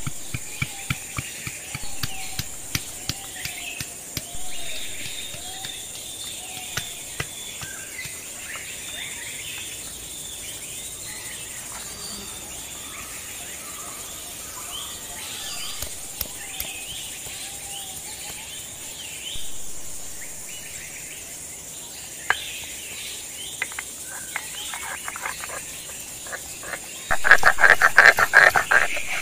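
Stone pestle knocking repeatedly in a granite mortar as garlic is pounded, over birdsong and a steady insect drone. Near the end, a louder rapid rasping as ginger is crushed on a stone grinding slab.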